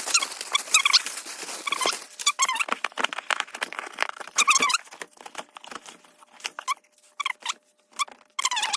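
Model-plane packaging being handled and opened, played back at five times normal speed. Dense rapid clicks and rustling are mixed with short high chirp-like sounds, with a quieter patch past the middle.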